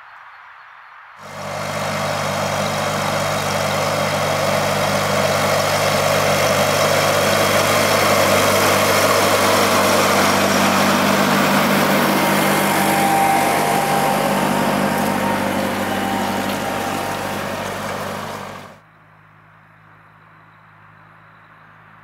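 Fendt 415 Vario TMS tractor's engine working under load close by as it pulls a reversible plough through the soil, a steady loud drone. It comes in suddenly about a second in and drops away suddenly near the end, leaving a faint steady engine hum.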